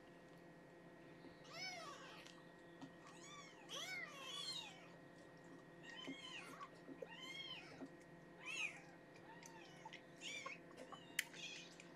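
Week-old kittens mewing: about a dozen short, high cries, each rising then falling in pitch, with a sharp click near the end.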